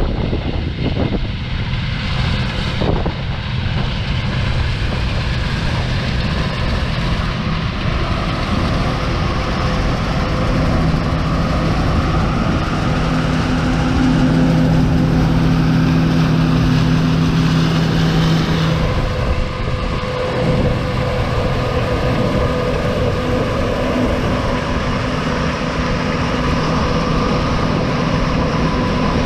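Large farm vehicle's engine running steadily, its hum stronger for several seconds in the middle.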